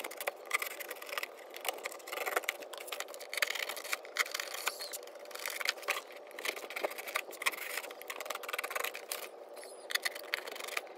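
Utility knife blade slicing through corrugated cardboard: a run of short, irregular scraping strokes as the box is cut.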